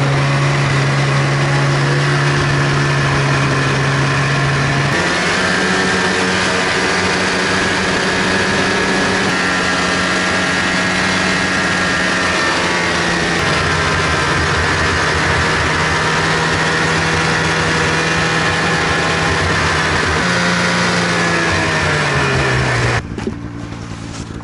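Snowmobile engine running at a steady speed while riding, its pitch stepping up about five seconds in and again near the end, then falling away before it cuts off suddenly.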